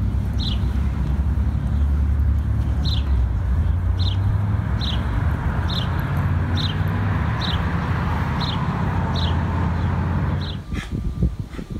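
Steady rumble of passing road traffic with a bird chirping a short, high, falling call over and over, about once a second. The rumble drops away near the end, leaving a few sharp clicks.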